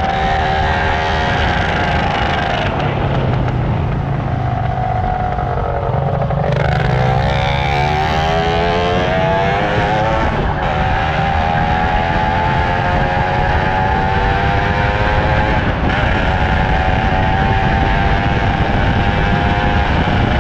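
Superbike engine running under way, heard from the bike with heavy wind rush on the microphone. Its pitch drops as it slows about four to six seconds in, climbs as it accelerates until about ten seconds in, then holds steady at cruising speed.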